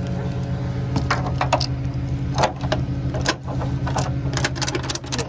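Flatbed tow truck's engine idling steadily, with scattered sharp metallic clicks and rattles that come thicker near the end.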